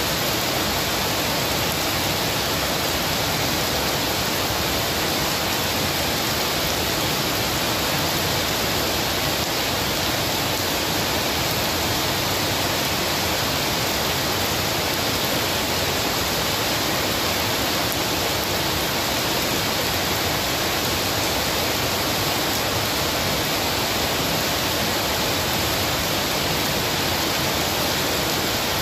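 Heavy rain pouring steadily onto a paved yard and palm leaves, an even, unbroken hiss of falling and splashing water.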